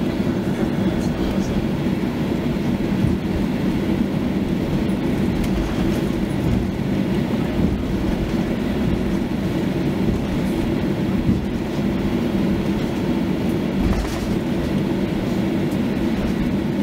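Cabin noise of a Boeing 737-800 taxiing: a steady low rumble from its CFM56-7B engines at taxi power and the gear rolling on concrete, with a few soft bumps as the wheels cross taxiway joints.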